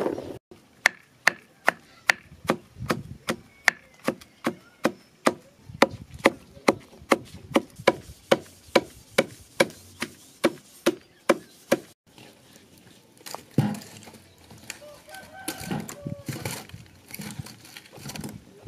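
Wooden pestle pounding garlic and onion in a wooden mortar, a steady knock about two and a half times a second, stopping about two-thirds of the way through.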